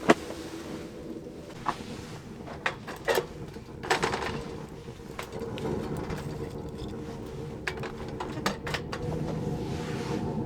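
Irregular sharp clicks and knocks, about a dozen, over a steady low hum.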